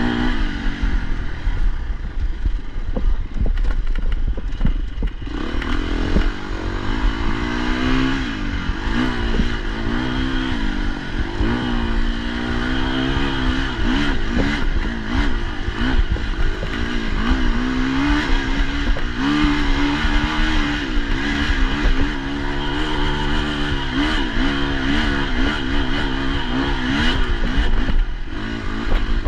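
Enduro dirt bike's engine under hard riding, its pitch rising and falling again and again as the throttle is worked, with knocks and rattles from the bike over rough ground.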